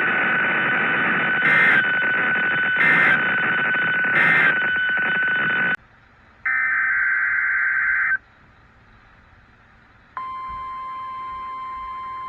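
Weather-radio reception hiss with a steady whistle, broken by three short EAS end-of-message data bursts about a second and a half apart; it cuts off, and after a short gap comes a burst of warbling SAME header data. After a pause, about ten seconds in, the steady single-pitch 1050 Hz NOAA Weather Radio warning alarm tone begins.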